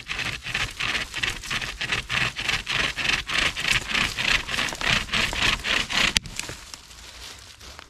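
Hand (pocket) chainsaw strung in a bent-stick bow frame, sawing back and forth through a branch: fast, regular rasping strokes as the chain's teeth cut into the wood. About six seconds in there is a single sharp crack, and after it the strokes turn quieter and lighter.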